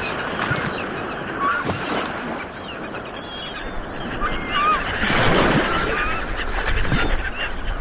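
Ocean waves washing in steadily, with many birds giving short calls over them; a wave surges in louder about five seconds in.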